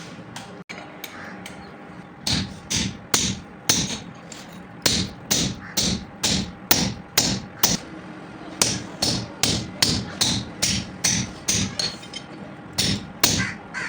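Hammer blows on hot steel from a rusty cultivator blade being forged into an axe, starting about two seconds in. The sharp, ringing strikes come steadily at about two a second, with a few brief pauses.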